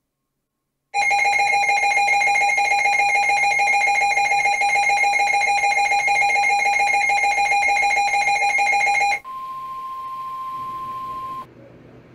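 Emergency weather alert tones. A loud pulsing electronic alarm with several steady pitches sounds for about eight seconds and stops, then a quieter single steady tone, the 1050 Hz warning tone used on NOAA Weather Radio, holds for about two seconds and cuts off.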